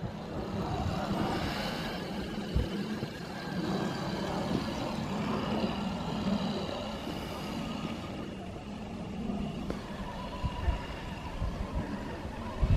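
Electric motor and gearing of a Traxxas TRX-4 Sport RC crawler whining steadily as it drives over rough ground, with a low rumble and a couple of short knocks.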